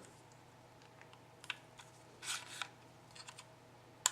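Faint clicks and a short rustle of a small plastic alarm sensor being handled and switched on, with one sharp click near the end.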